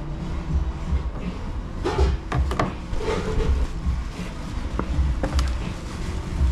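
Handling sounds at a wooden pickup shelf: a few sharp clicks and knocks about two seconds in, then single clicks near five seconds as a phone is set down on the shelf, over a low irregular rumble.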